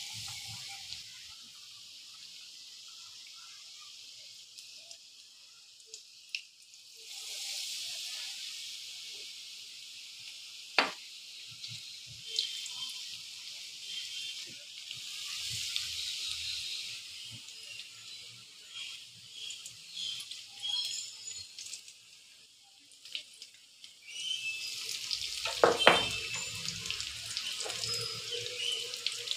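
Batter-coated potato vadas deep-frying in hot oil in a karahi: a steady sizzle with crackling that swells about seven seconds in and again near the end. A sharp knock comes about eleven seconds in and a louder one near the end.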